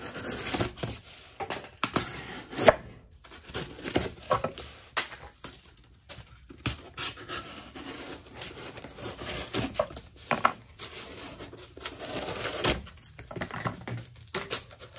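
Benchmade Claymore's D2 steel folding-knife blade slicing through double-wall corrugated cardboard, cut on the plain edge rather than the serrations. The blade goes through in irregular tearing, scraping strokes, with a few sharp clicks.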